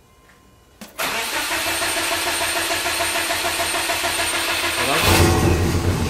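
Turbocharged Subaru Legacy GT engine being cranked by its starter for about four seconds, then firing and running louder near the end. It is a hard start after a Stage 2 flash, which the owners put down to a mass airflow sensor problem or a boost leak.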